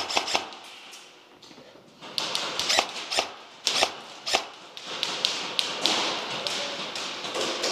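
Footsteps and handling of a rifle and gear: a scattered run of sharp taps and knocks, then a steadier rustling noise from about five seconds in as the wearer turns and moves.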